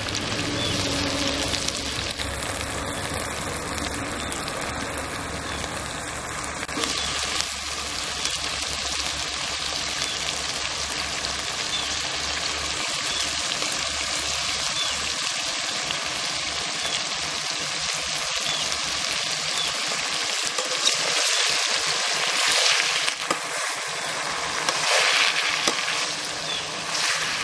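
Thoothuvalai (Solanum trilobatum) leaves sizzling as they sauté in a hot pan, a steady frying hiss with a few louder spells near the end.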